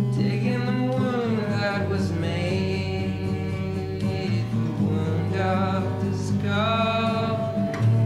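Music: a song with guitar and a singing voice holding long, wavering notes over steady low notes.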